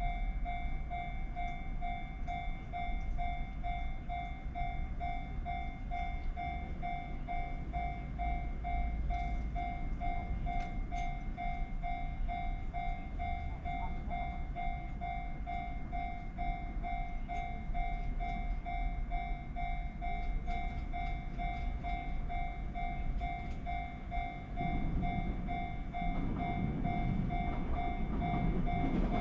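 Japanese railway level-crossing alarm ringing its repeated 'kan-kan' tone, about two strikes a second, while the crossing is closed for a train. A low rumble builds near the end as the train approaches.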